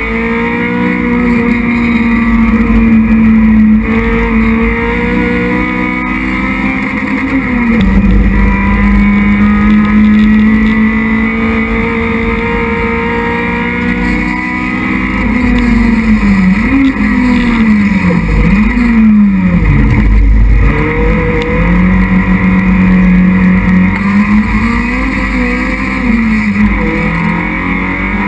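Racing Citroën Saxo's four-cylinder engine at high revs, heard from inside the cabin. The note holds fairly steady, then drops and recovers sharply several times about halfway through before settling again.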